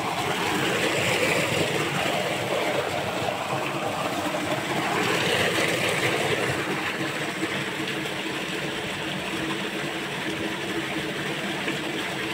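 Water gushing steadily from a pump's steel outlet pipe into a concrete tank, a constant rushing and splashing.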